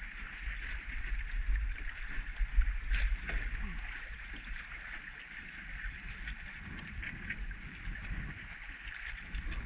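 Wind rumbling on the microphone over choppy water lapping against a kayak hull, with a couple of light knocks.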